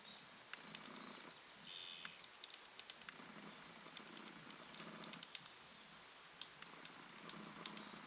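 Japanese pygmy woodpecker pecking and probing at tree bark: light, irregular taps in small clusters. A short, buzzy bird call comes about two seconds in.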